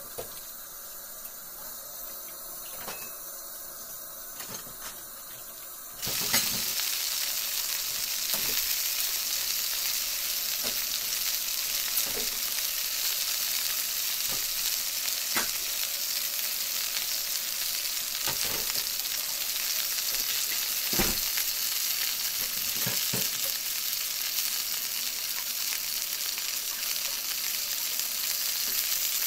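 Sizzling, like food frying: a fainter hiss that turns suddenly into a loud, steady sizzle about six seconds in, with scattered crackles and pops through it.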